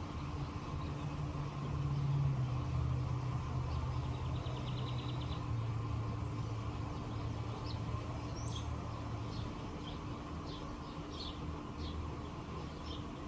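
Small birds chirping in short, high calls scattered through the second half, with a quick rattling trill about four seconds in. Underneath runs a steady low rumble like distant traffic, swelling about two seconds in and the loudest sound throughout.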